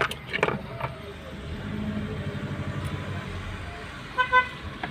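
Inside a Seat Leon's cabin while driving: a steady low road and engine rumble with a few sharp clicks in the first second. About four seconds in come two short, pitched beeps close together.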